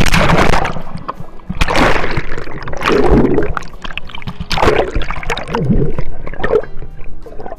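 Swimming-pool water splashing hard around an action camera as a person plunges in, followed by several more loud surges of sloshing water and muffled gurgling as the camera goes under and comes back up.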